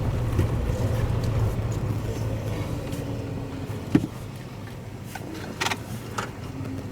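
Vehicle engine and road rumble, low and steady, fading about four seconds in, with a sharp click at that point and a few faint ticks after.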